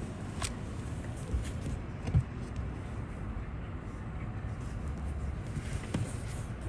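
Street traffic at an intersection: a steady low rumble of car engines, with a short thump about two seconds in.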